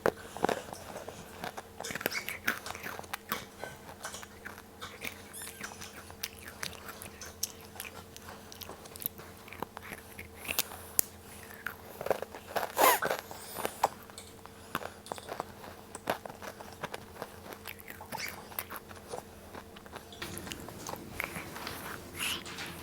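Someone biting and chewing Cookie Pepero biscuit sticks: irregular crisp crunches, with the loudest ones around 13 seconds in.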